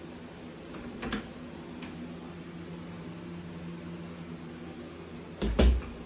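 Interior closet door with a knob: its latch clicks open about a second in, and the door is shut with a thump near the end, over a steady low hum.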